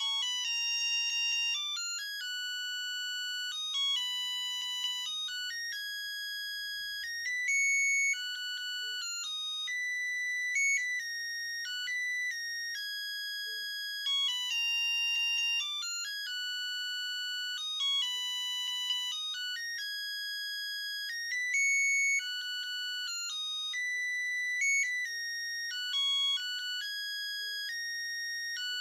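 Samsung SGH-A300 mobile phone playing a built-in electronic ringtone: a beeping synthesized melody of about fourteen seconds, played through twice.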